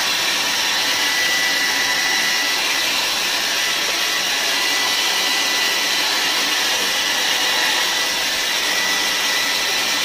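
Ionic handheld hair dryer running, blowing a strong stream of air: a loud, steady rush of air with a faint steady high whine.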